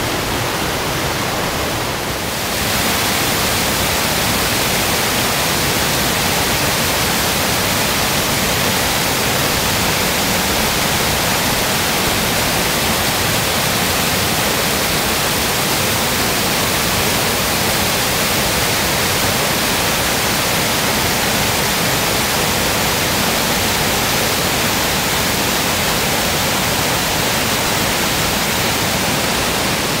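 A river in full flood rushing over rapids and a waterfall: a loud, steady rush of white water. It gets a little louder about two seconds in.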